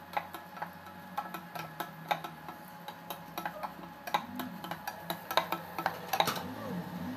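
Wooden spatula knocking and scraping against a coated saucepan as sausage pieces are stirred: a run of irregular sharp clicks and taps, two or three a second.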